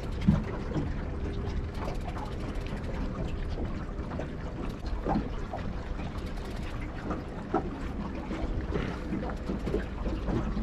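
Water lapping against a small boat's hull in a heavy current, with wind on the microphone and scattered knocks, the sharpest one just after the start.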